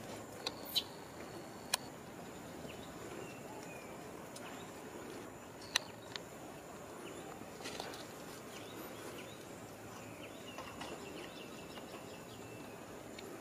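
Quiet outdoor ambience: a steady faint hiss with a thin, high steady tone, broken by a few sharp clicks, two close together near the start and one about six seconds in.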